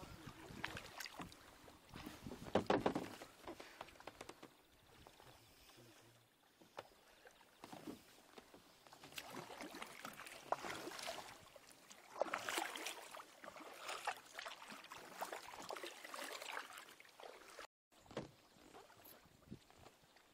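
Double-bladed kayak paddle dipping into calm river water: irregular splashes and drips as each blade goes in and lifts out. The sound cuts out for a moment near the end.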